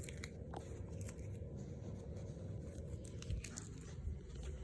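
Faint handling noise of small computer case screws being gathered up: scattered light clicks and rustles.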